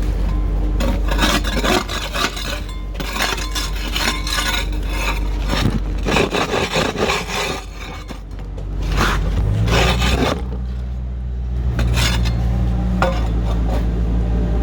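Construction-site noise: repeated rough scraping and rasping strokes over a steady low machine rumble. About ten seconds in, an engine settles into a steady hum.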